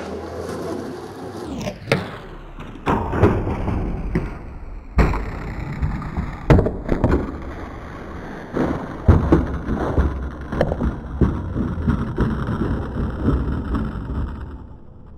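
A skateboard rolls on pavement, then comes a long run of hard knocks and clatters as the board and the falling skater hit the concrete steps and ground.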